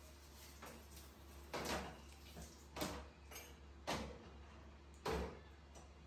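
A young monkey biting and chewing a piece of fruit: short wet, crunchy bites and chews about once a second, over a low steady hum.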